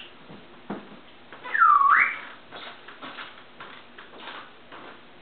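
African grey parrot whistling: one loud whistle about one and a half seconds in that dips in pitch and swoops back up, followed by a few faint clicks.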